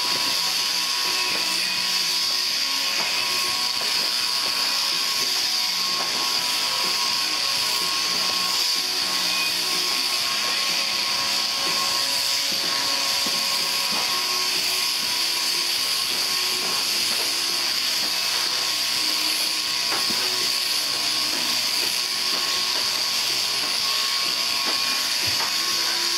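Electric sheep-shearing handpieces on overhead-drive downtubes running steadily as a fleece is shorn off, a constant high hiss with no break.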